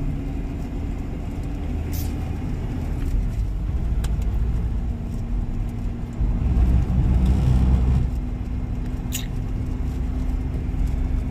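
Car cabin noise while driving: a steady low engine and road rumble with a constant hum, swelling louder for a second or two past the middle. Two brief clicks are heard, one early and one near the end.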